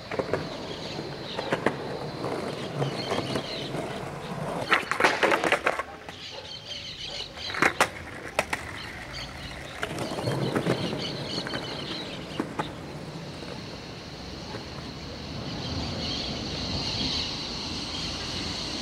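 Skateboard wheels rolling on rough concrete, with sharp clacks of the board's tail popping and the board landing and striking the box several times, the loudest cluster about five seconds in and another about eight seconds in.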